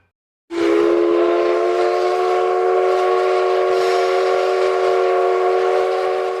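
Japanese train horn sounding one long, steady blast of several tones at once, starting about half a second in and settling slightly upward in pitch at the onset.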